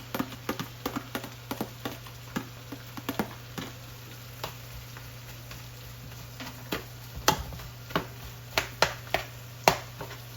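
A cooking utensil clicking and knocking against a pot as seasoning is stirred in melted butter: quick taps for the first few seconds, then fewer, louder knocks later on.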